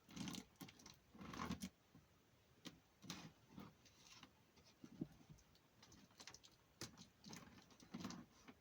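Faint, irregular scratching and clicking as packing tape along the edge of a cardboard box is cut and picked open, in short uneven strokes with the strongest about a second in.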